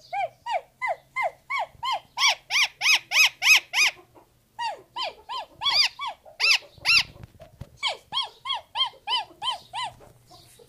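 Rose-ringed parakeet calling in quick runs of sharp screeches, about three a second, each rising then falling in pitch, with two short breaks.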